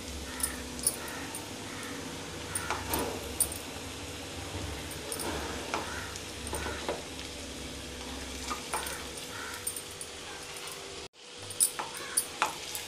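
Oil sizzling in a non-stick wok as raw chicken drumsticks are put into fried garlic and onion, with scattered knocks of a metal spoon and the pieces against the pan. The sound drops out for a moment about eleven seconds in.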